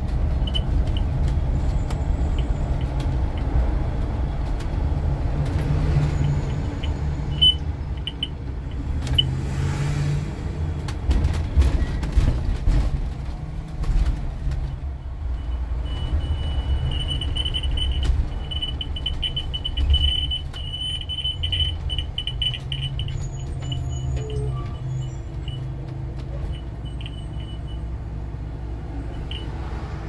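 School bus's emergency-exit warning buzzer giving short high chirps on one fixed pitch, now and then, with a run of rapid chirps lasting several seconds about halfway through, over the steady low rumble of the running bus. It is a false emergency-exit alarm: the bus takes the side emergency exit for open, and the driver suspects a wire rubbing somewhere at that exit.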